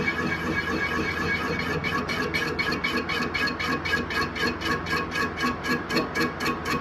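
Metal lathe running with a steady hum and a high whine, joined about two seconds in by a fast, even ticking beat of about four a second, typical of background music fading in.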